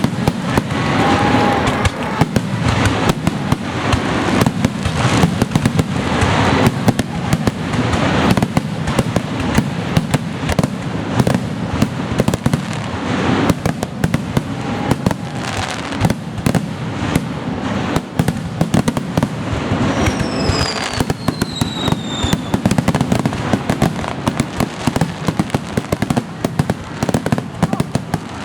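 Japanese fireworks display: aerial shells bursting in a rapid, continuous barrage of bangs and crackles. A high falling whistle cuts through about two-thirds of the way in.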